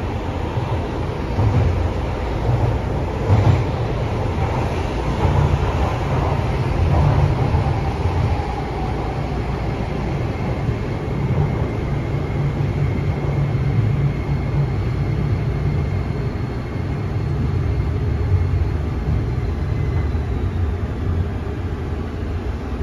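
Onboard running noise of a Toei Oedo Line 12-600 series subway car, with the low rumble of wheels on rail in the tunnel. A thin, steady high whine from its Hitachi SiC inverter and linear induction motors sets in as the train slows into a station, then dips slightly and stops about 20 seconds in.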